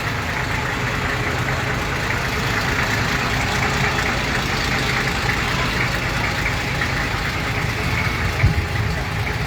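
An engine idling steadily, with a short knock near the end.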